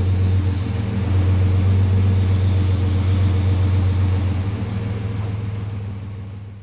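Rebuilt 4.3-litre Vortec V6 engine running steadily just after starting, with an even low drone, fading out near the end.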